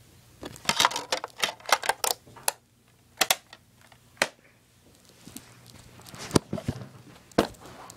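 Handling noise: a run of irregular clicks, knocks and rubbing as the recording phone is moved around and brushes against things. The clicks are densest in the first couple of seconds, then come singly.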